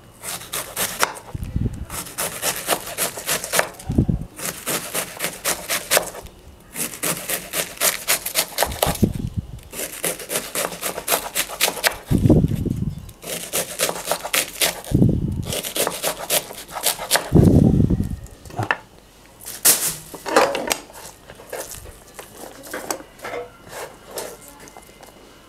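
Kitchen knife finely shredding cabbage on a cutting board: runs of quick strokes, several a second, broken by short pauses, with a few low thuds among them. The strokes thin out near the end.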